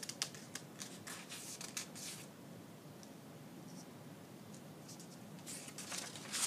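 Sheet of printer paper rustling as it is handled against a whiteboard: a few light clicks and rustles in the first two seconds, then a louder rustle near the end as the sheet is flipped over.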